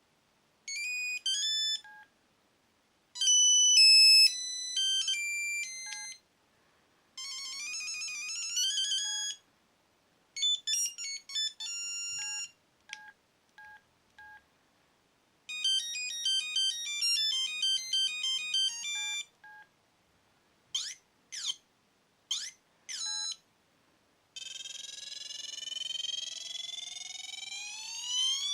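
Sony Ericsson T68i mobile phone playing its preloaded ringtones one after another, each a few seconds of high, beepy electronic melody that stops abruptly, with short single beeps in the gaps. The last tone, near the end, is a steadily rising electronic sweep.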